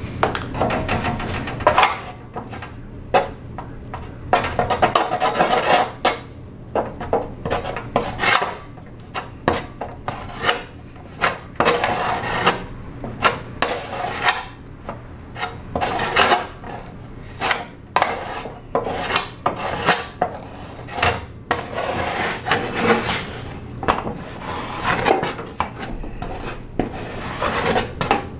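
Body filler being hand-sanded on car body panels: irregular rubbing, rasping strokes.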